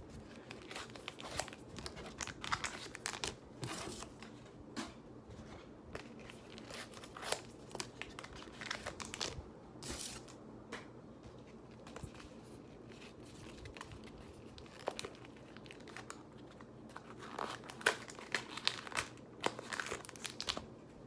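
Pokémon card blister packs being unwrapped by hand: plastic wrap crinkling and cardboard backing tearing in irregular crackles and rips. The handling is busiest in the first few seconds, around the middle, and again near the end.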